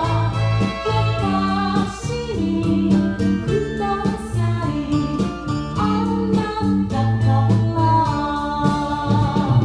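Recorded Japanese pop song with singing and guitar, played back through a 300B single-ended tube amplifier.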